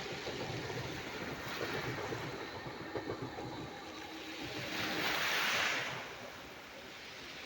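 Sea waves washing on the shore, with one wave swelling and breaking about five seconds in.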